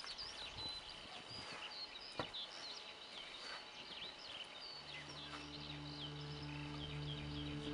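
Small songbirds chirping and calling over rural field ambience, with a couple of faint knocks. About two-thirds of the way in, a sustained low musical chord fades in beneath the birds.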